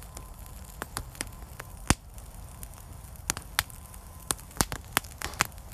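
Wood campfire crackling: irregular sharp pops and snaps of burning sticks over a low steady rumble. The pops come faster in the second half, and the loudest snap falls about two seconds in.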